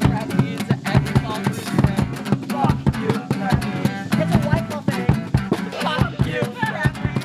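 Band music: guitar and drum kit playing with a steady beat.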